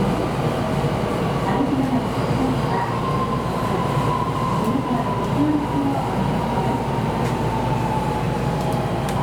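Electric train running, with a steady low rumble and a thin motor whine that slowly falls in pitch through the second half as the train slows.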